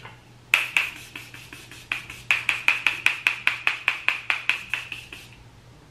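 A small makeup item clicked or tapped in the hand: a run of about two dozen sharp, evenly pitched clicks, mostly around five a second, stopping shortly before the end.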